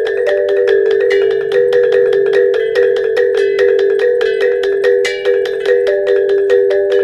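T'boli traditional instrumental music: rapid, evenly repeated struck or plucked pitched notes ringing over a steady drone tone.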